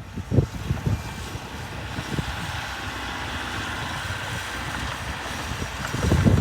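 Heavy earthmoving machine's diesel engine running steadily, with a few low thumps near the start and again just before the end.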